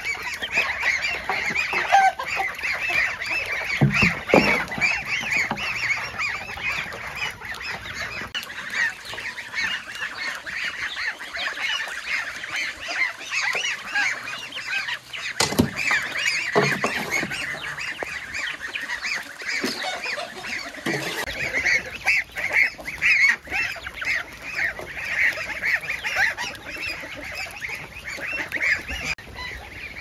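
A flock of farm fowl calling, many short overlapping calls throughout, with a couple of brief knocks about four and fifteen seconds in.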